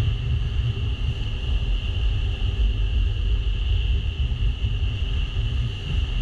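Panga boat running at speed under outboard power: a steady low rumble of wind and rushing water, with a steady high whine.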